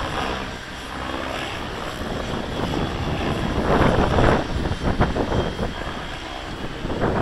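Gaui X7 RC helicopter in flight: the rotor blades whoosh and the motor runs continuously, swelling in a few loud surges as the helicopter manoeuvres.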